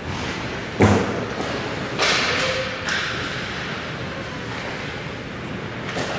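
Ice hockey play close to the net: a sharp thud about a second in, then a hissing scrape of skate blades on the ice about two seconds in, with a smaller scrape and a click later.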